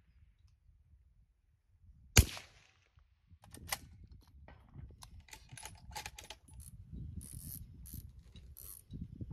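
A suppressed 6.5 Creedmoor rifle fires one sharp shot about two seconds in. A second or so later comes a run of small mechanical clicks and clacks as the rifle is handled, lasting several seconds.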